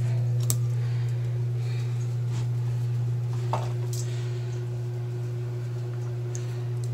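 Electric foot spa basin humming steadily with a low mains-pitched motor drone, with a few faint knocks and splashes from the feet in the foamy water.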